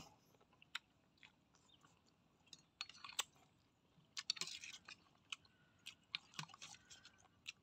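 Quiet chewing of cooked snails: sparse wet mouth clicks and smacks, with short bursts of clicking about three and four and a half seconds in.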